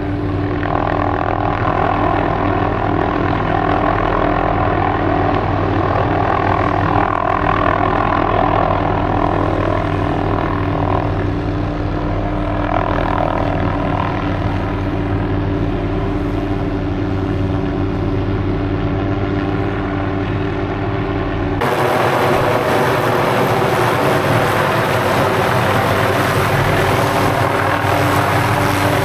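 MD 500D helicopter running steadily, its turbine and rotor giving a deep hum under a noisy whoosh. About three-quarters of the way through the sound changes abruptly, losing most of the deep hum and turning into a brighter hiss.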